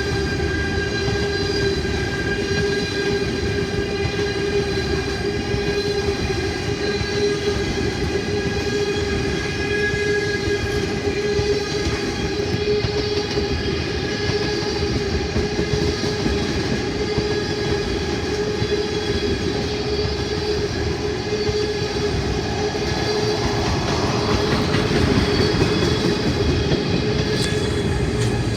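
Train running by on the rails: a steady rumble with a constant whine over it, growing a little louder near the end.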